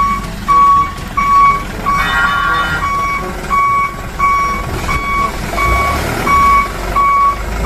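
Electronic reversing-alarm beeps from a small toy truck: one high beep repeating evenly at nearly two a second over a steady low engine-like rumble. A short burst of extra higher tones sounds about two seconds in.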